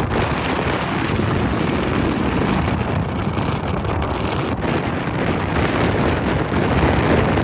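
Wind rushing over the microphone on a moving motorcycle, a loud steady rush with the bike's running and road noise under it.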